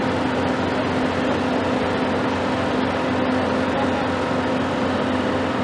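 Engine of a mobile gantry boat hoist running steadily with a constant hum, powering the hoist as it lowers a yacht into the water.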